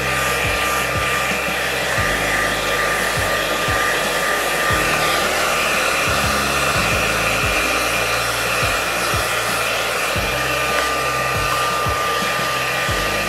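Handheld hair dryer running steadily, blowing on a wet puppy's coat after a bath. It makes an even hiss with a thin, steady whistle in it.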